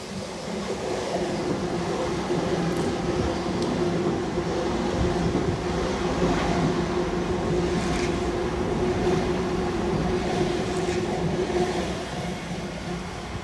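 Sydney Trains Oscar (H set) electric multiple unit running along the platform close by: a steady rumble of wheels on rail with a held motor hum and a few faint clicks. It builds over the first second and fades away about twelve seconds in.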